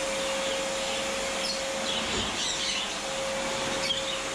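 Small birds chirping in short bursts over a steady machine whir with a constant hum-like tone.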